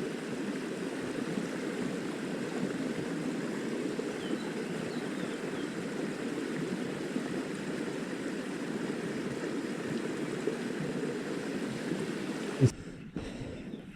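Small stream's water rushing steadily over stones, a continuous even wash that cuts off suddenly near the end.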